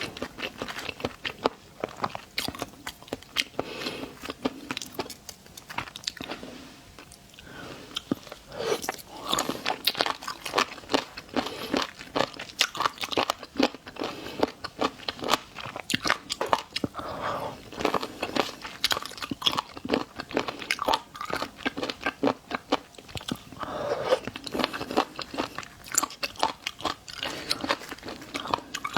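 A person chewing and biting into shrimp close to the microphone, with many sharp crunches and crackles. The crunching eases off briefly about seven seconds in.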